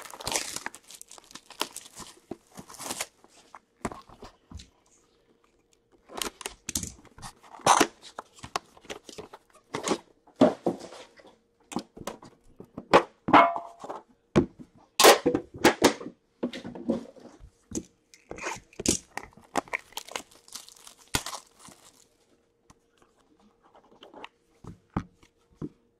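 Plastic shrink-wrap being torn and crumpled off a sealed box of hockey cards, in irregular crackles and rips with short pauses. It dies down to faint handling of the box near the end.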